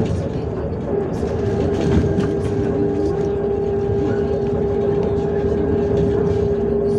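Interior sound of a MAZ-105 articulated city bus under way: engine and drivetrain running, with a steady whine that sets in about a second in and holds at one pitch.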